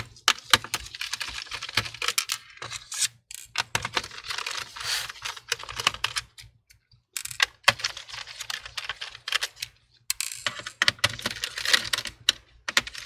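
Phillips screwdriver backing out a laptop's bottom-cover screws: quick runs of small clicks and scratchy ticks as the bit turns in the screw heads, broken by short pauses as it moves to the next screw.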